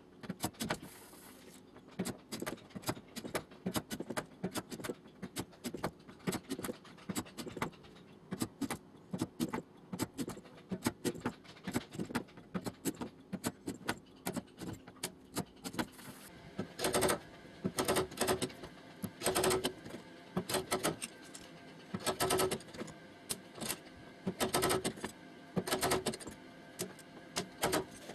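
Rapid, irregular light hammer taps on the sheet-metal skin of a car door, being straightened. More than halfway through, the blows come in louder runs with a short metallic ring.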